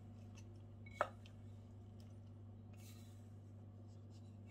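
Quiet room with a steady low hum; about a second in, a single light clink of kitchenware, with a few faint scrapes of crumbly pastry dough being tipped from a glass bowl into a metal baking pan.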